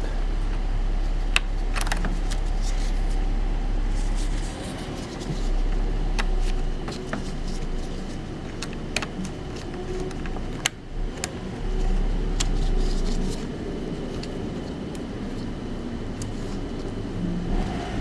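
Scattered sharp clicks and light knocks of parts being handled in a car's under-hood fuse box, over a steady low rumble that drops away in places.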